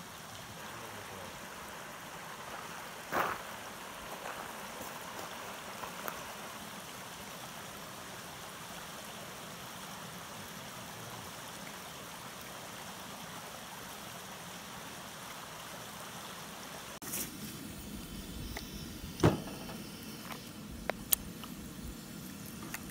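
Small woodland brook running, a steady rush of water, with a brief sharp sound a few seconds in. Near the end the water sound gives way to a few sharp knocks and clicks, the loudest about three quarters of the way through.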